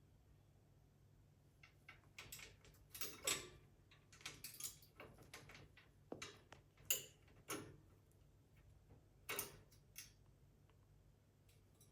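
Faint, irregular clicks, knocks and short scrapes, clustered from about two seconds in to about ten seconds in.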